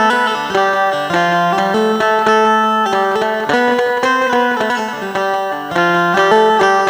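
Indian banjo (bulbul tarang, a keyed string zither) playing a Hindi film melody. Each note is sounded with a fast tremolo of rapid picked strokes over a lower held note.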